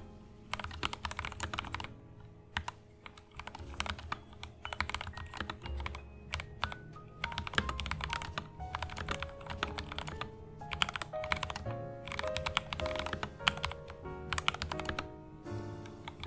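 Typing on a mechanical keyboard fitted with freshly lubed Gateron Yellow linear switches: quick runs of keystrokes with short pauses between them, over jazz music.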